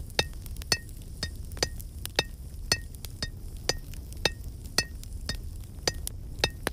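Blacksmith's hammer striking an anvil in a steady rhythm: about two ringing blows a second with lighter taps between them, over a low steady hum.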